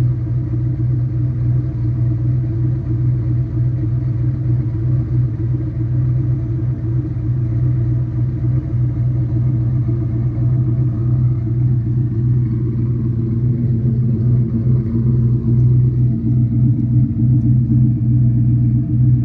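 Turbocharged Ford Mustang engine idling steadily with a deep, even exhaust hum, run to check for exhaust leaks at a freshly milled passenger header sealed with a Remflex gasket; the owner hears only a little valve train noise and no obvious leak.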